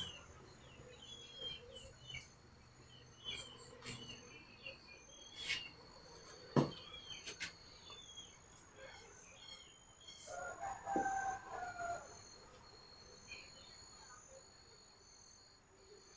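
A rooster crows once, about ten seconds in, over small birds chirping and an insect trilling on and off. A single sharp knock about six and a half seconds in is the loudest sound.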